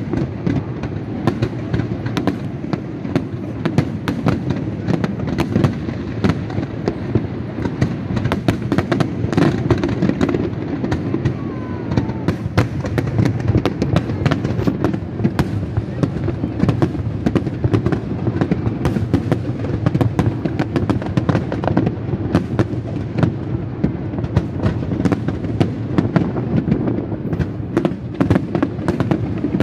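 Aerial fireworks display: a dense, unbroken barrage of sharp bangs and crackles, several a second, over a constant low din.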